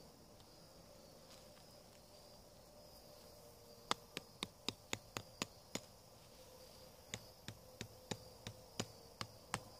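Hammer tapping a metal sod pin through weed fabric into hard ground: two runs of about eight quick, light strikes, the first starting about four seconds in and the second about three seconds later.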